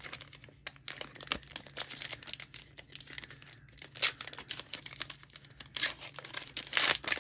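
The foil wrapper of a 2019 Bowman baseball card pack crinkling and being torn open by hand: irregular crackles, with louder rips about four seconds in and again near the end.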